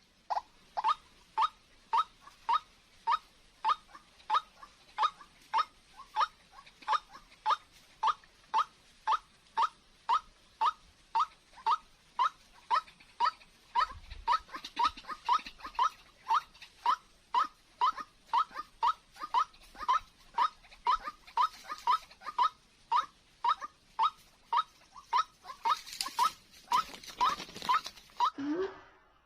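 White-breasted waterhen calling, a long, even series of short, rising notes, about two a second. Near the end there is a burst of rustling noise.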